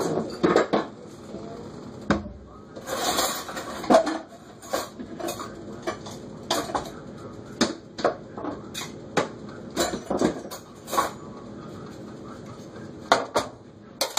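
Cookware and metal utensils clinking and knocking in a kitchen: a string of short, sharp clinks and taps, roughly one a second, with a denser clatter about three seconds in.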